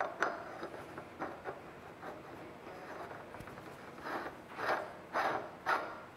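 Metal 1.5-inch pipe tee being screwed by hand onto a threaded close nipple: the threads scrape as it turns, in short strokes that come about twice a second in the second half.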